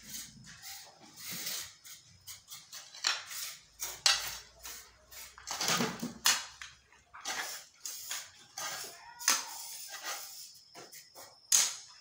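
Steel hoe and shovel chopping and scraping into rocky soil: irregular crunching strikes and scrapes about once a second.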